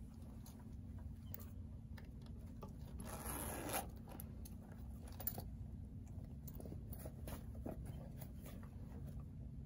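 Metal zipper on a vintage Coach leather crossbody bag being run in one quick pull, under a second long, about three seconds in. Faint rustles of the leather being handled and small clicks from the hardware come before and after.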